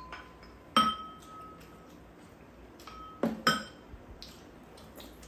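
Tableware clinking during a meal: spoons, chopsticks and bowls knocking together. A sharp ringing clink comes about a second in, then two more in quick succession a little past three seconds.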